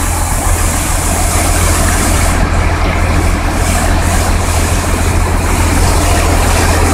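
Fire engine's engine running with a steady low drone while it pumps water to a hose line.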